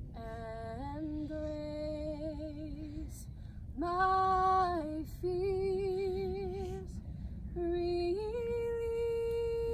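A woman singing solo and unaccompanied in slow, held notes with vibrato. The singing comes in four phrases with short breaths between them, and the last note rises and is held long.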